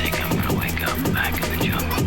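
Intro music with a heavy bass line and a steady beat, with a vocal-like line over it.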